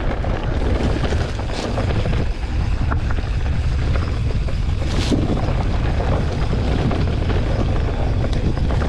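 Wind buffeting the microphone of a mountain bike rider on the move, a steady low rumble with trail noise, and two short knocks about a second and a half in and about five seconds in.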